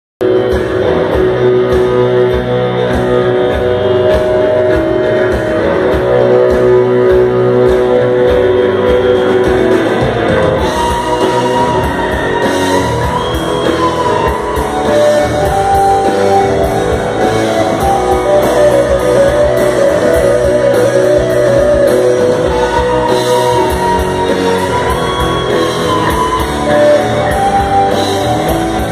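Live rock band playing loudly: electric guitars over a drum kit with a steady beat.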